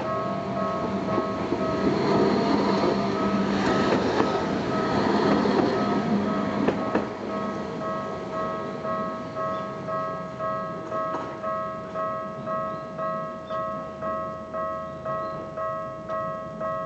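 Electronic level-crossing alarms, two units sounding together, ringing a steady repeated ding over several tones while a Tokyu Setagaya Line tram-style train rumbles across the crossing, its wheel and motor noise loudest in the first seven seconds or so. Once the train has passed the alarms carry on alone, pulsing about one and a half times a second.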